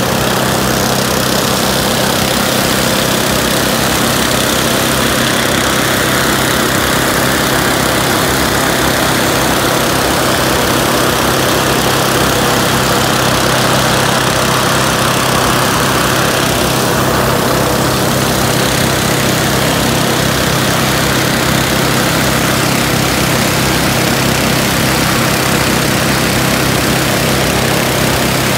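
Hot-air balloon propane burner firing with a continuous roar, over the steady running of a small petrol engine, the inflator fan filling a neighbouring balloon. The roar swells for a stretch in the middle.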